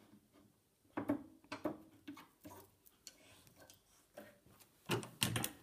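Scattered clicks and knocks from the stops and length setting of a passe-partout mat-cutting machine being adjusted by hand, with a louder cluster near the end.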